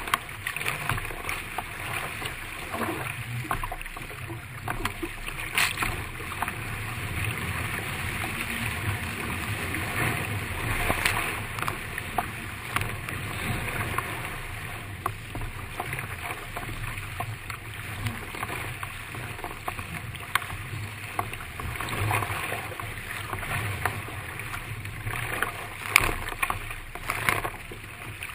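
Surfski being paddled downwind through rough sea: a steady rush of water and wind, broken by frequent sharp splashes of paddle strokes and spray close by.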